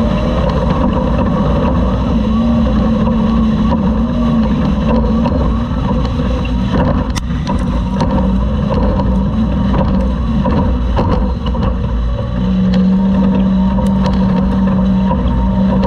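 Engine of a Class 2000 Toyota off-road race truck running hard at racing speed, heard from on board. Its pitch eases off briefly twice, then holds steady and high near the end, with scattered sharp clicks.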